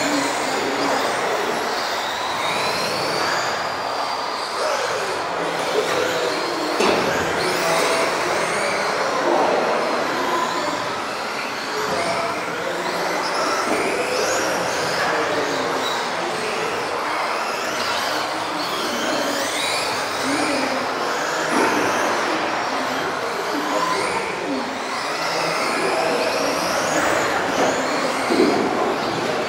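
Several electric RC off-road cars racing together, their motors whining up and down in pitch as they accelerate and brake, over a haze of tyre and drivetrain noise. There is a sharp knock about seven seconds in.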